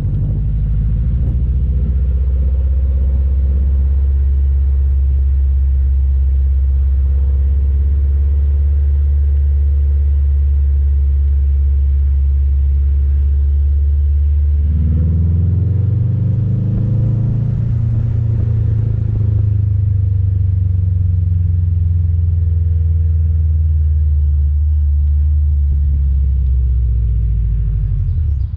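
Exhaust of a 2007 Subaru WRX STI's turbocharged flat-four, with a catless downpipe and HKS cat-back, heard from outside the car: a steady low rumble at first. About halfway through the engine pulls harder and its pitch climbs, then it holds a steady higher pitch and eases off near the end.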